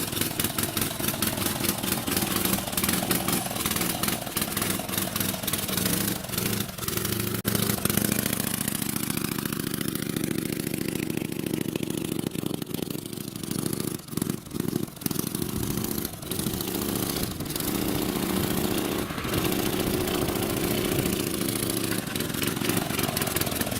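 Small Briggs & Stratton single-cylinder engine on a vintage Rupp mini bike running continuously, cold and not yet fully warmed up. It briefly drops out a few times a little past the middle.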